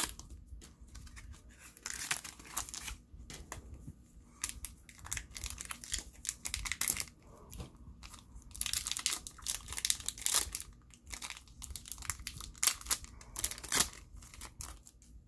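Plastic trading-card booster-pack wrapper being torn open and crinkled by hand, in irregular bursts of crackling.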